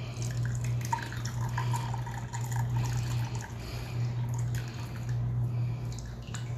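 Hot milk tea trickling from a steel pot through a plastic mesh strainer into a coconut-shell cup. A steady low hum runs underneath.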